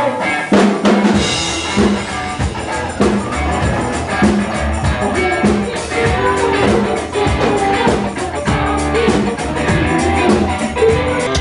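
Live band playing an instrumental passage: the drum kit comes in about half a second in and keeps a steady beat under bass and guitar.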